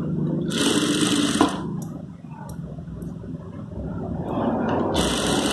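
Industrial sewing machine stitching in two short runs of about a second each, the second starting near the end, as fabric strips are sewn together end to end.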